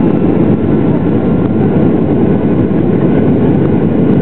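Boeing 737-800's CFM56-7B turbofan engines running steadily at climb power, heard inside the cabin as a loud, even rumble mixed with airflow noise.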